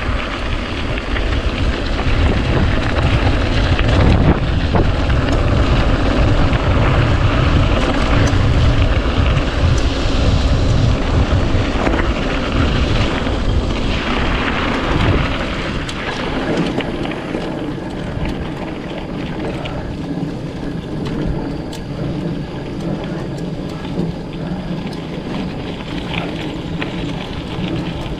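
Wind buffeting a handlebar-mounted GoPro's microphone, with a mountain bike's tyres rumbling over a dirt trail on a fast downhill run. It is loudest in the first half and eases a little after about the middle.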